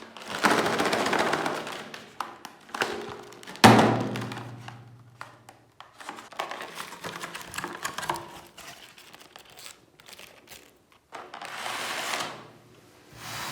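Electric meat grinder running in bursts, crunching and crinkling through foil-wrapped chocolate umbrellas. The loudest burst starts suddenly about three and a half seconds in.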